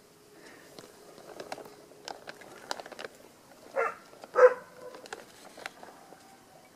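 Two short, loud animal calls about four seconds in, the second the louder, amid scattered sharp clicks and light rustling.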